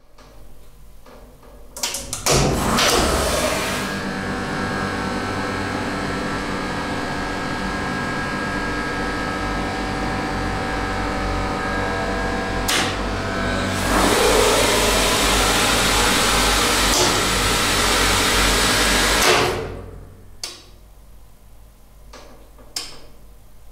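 Hydraulic elevator power unit with a GMV squirrel-cage induction motor submerged in the hydraulic oil, starting about two seconds in and running the pump with a steady hum and whine. A click comes just before it grows louder and hissier, and it stops suddenly about three-quarters of the way through.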